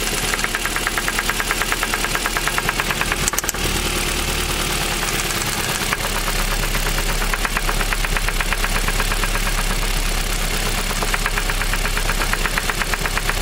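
Car engine running with a rapid, steady rhythmic knock. It is the knock of a spun connecting-rod bearing with large play.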